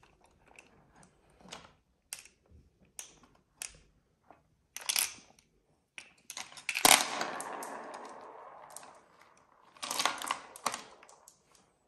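Glass marbles clicking against each other and against a plastic toy excavator bucket as they are scooped up by hand. About seven seconds in, a sharp clack starts a longer rattle that fades over about two seconds, and a cluster of clinks follows about ten seconds in.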